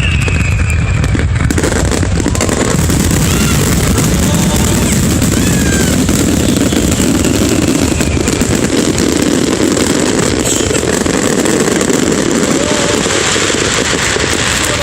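Fireworks barrage: a dense, unbroken run of rapid bangs and crackles, with faint crowd voices underneath.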